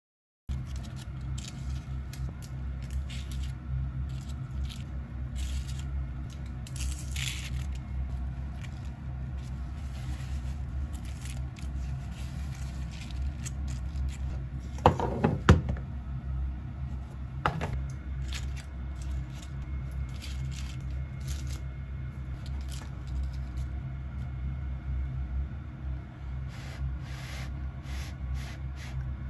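Light handling noises of paper baking cups and plastic food containers on a stainless steel counter: small scrapes, rustles and clicks, with a couple of sharper knocks about halfway through. A steady low hum runs underneath.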